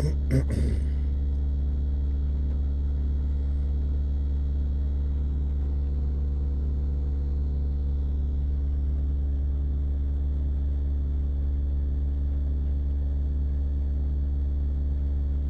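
Steady low rumble of a car idling with the heater running, heard inside the cabin. There is a short knock about half a second in.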